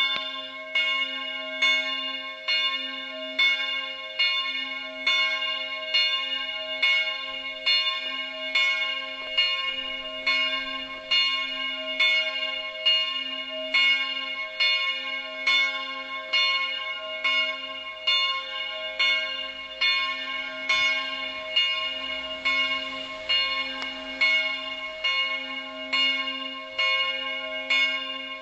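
A swinging church bell with a strike note of c'' rings for the evening bell. Its clapper strikes about once every 0.7 seconds in an even rhythm, and the bell's hum and partials ring on between strokes.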